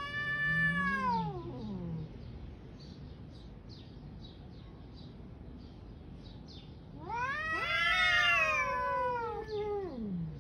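Cats yowling in a territorial standoff: two long, drawn-out caterwauls that rise and then fall in pitch. The first lasts about two seconds. The second is louder and longer, starts about seven seconds in, and has two pitches overlapping.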